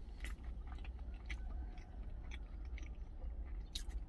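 A person chewing a mouthful of jjajang rice, with many small wet mouth clicks, over a low steady hum.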